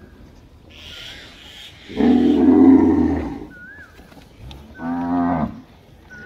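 Gir cows mooing: a long, low moo about two seconds in, then a shorter, higher moo about five seconds in.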